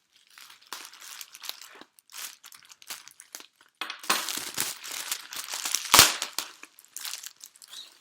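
Packaging being cut and unwrapped: irregular crinkling and rustling, busiest in the second half, with one sharp loud knock about six seconds in.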